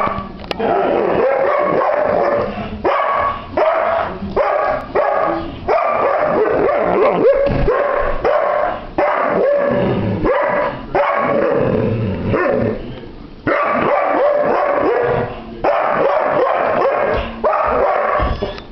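Irish Setter barking and whining over and over in a long string of vocal bouts, with only brief pauses between them. The dog play-bows as it vocalizes, so these are playful, demanding barks.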